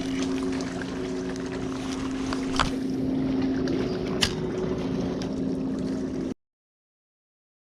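A steady, low motor-like hum with water and wind noise, broken by two short sharp clicks. The sound cuts off abruptly to dead silence about six seconds in.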